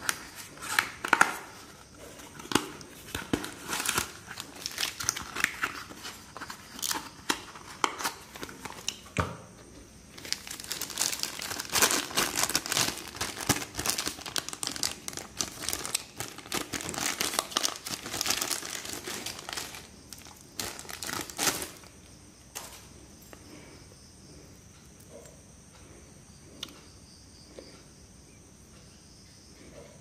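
A cardboard box being opened, then a thin clear plastic bag crinkling and rustling as it is handled and opened, with small clicks of handling. The bag's crinkling is densest in the middle and stops about two-thirds of the way through, leaving only a few faint clicks.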